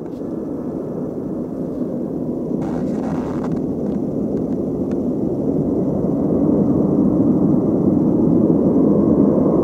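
Airbus A330-200's twin jet engines at takeoff power on the takeoff roll: a steady roar that grows louder as the airliner approaches.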